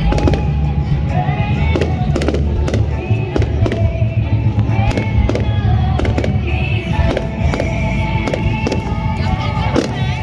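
Fireworks display: a rapid, uneven run of bangs and crackles over a continuous low rumble, with music playing.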